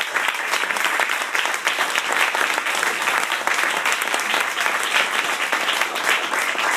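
Theatre audience applauding steadily: dense, even clapping from many hands.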